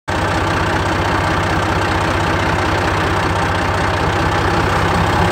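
Tractor engine running steadily while the tractor pulls a mounted vineyard hoe along a vine row; the sound starts abruptly.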